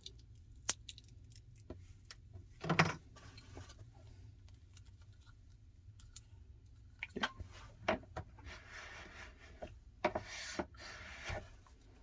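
Small clicks and taps of phone parts and tools being handled. There is a louder brief scrape about three seconds in, and a stretch of rubbing and rustling near the end.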